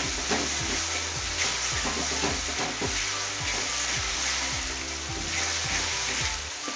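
Vegetables sizzling in hot oil in a kadai over a high flame, stirred and tossed: a steady, dense frying hiss.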